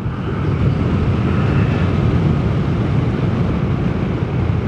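Vespa GTS 300 scooter riding along at a steady speed: the even drone of its single-cylinder four-stroke engine mixed with the rush of wind.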